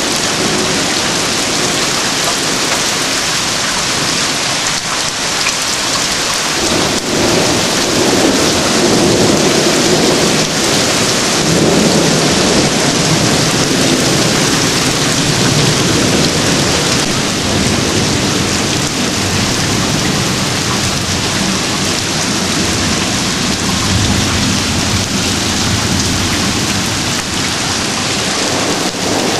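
Heavy summer rain pouring steadily onto lawns and pavement, with deep rolling thunder rumbling underneath that builds about a quarter of the way in and keeps rolling.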